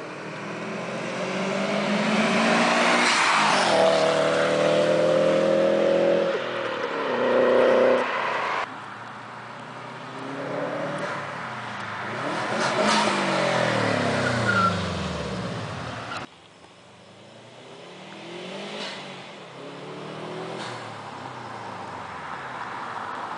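2004 Subaru Impreza WRX with an HKS turbo-back exhaust, its turbocharged flat-four accelerating past in three drive-bys, cut together. Each time the exhaust note grows louder and rises in pitch as the car comes up, then falls away as it passes; the first pass is the loudest.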